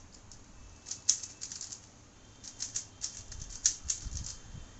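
A 3x3 Rubik's cube being turned quickly by hand: runs of rapid plastic clicks and clacks, with a short lull about two seconds in.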